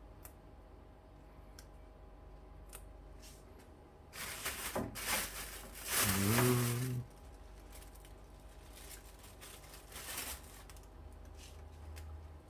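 Quiet room tone with a few light clicks, then bursts of rustling and tearing about four, six and ten seconds in as fresh mint leaves are handled and laid on a plate of salad. The loudest burst, about six seconds in, carries a brief low hum.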